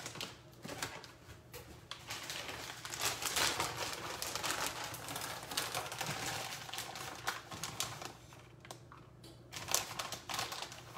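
Plastic bag of shredded mozzarella crinkling and rustling in hand as it is opened and the cheese is shaken out, with many small irregular clicks, busiest through the middle stretch.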